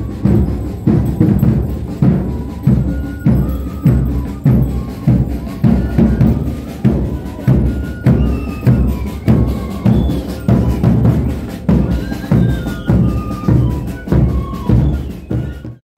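Street band music for the dancers: a steady bass-drum beat about twice a second under a melody of short high notes. The music cuts off suddenly just before the end.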